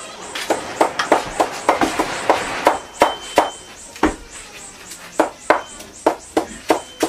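A heavy knife chopping green plant stalks on a chopping block: a quick run of sharp chops, about three to five a second, with a harder chop about four seconds in, then a pause of about a second before the chopping picks up again.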